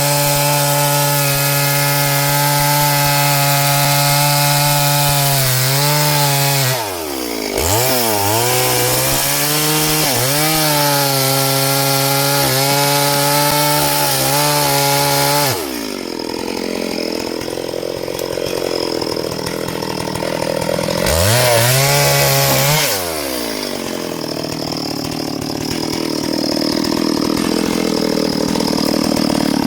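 Small chainsaw running at high revs, its pitch dipping briefly twice, then dropping to a lower, rougher running about halfway through. It is revved up once more for a couple of seconds and let fall again.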